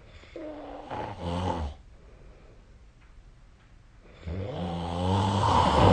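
A sleeping person snoring: two snores, a short one near the start and a longer, louder one from about four seconds in that builds to its peak near the end.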